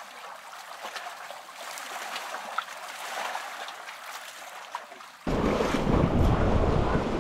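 Rushing river water, a steady hiss with small splashes and ticks. About five seconds in it gives way suddenly to a much louder rumble of wind buffeting the microphone over the water.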